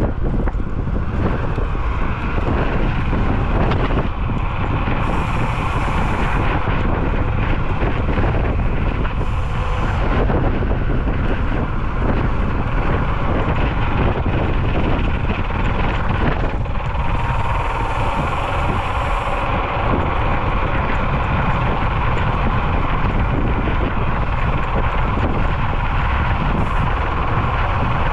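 Wind rushing steadily over the microphone of an electric scooter riding along an asphalt road, with the scooter's running noise beneath it. A few brief hissing rushes come and go about five, nine and seventeen seconds in.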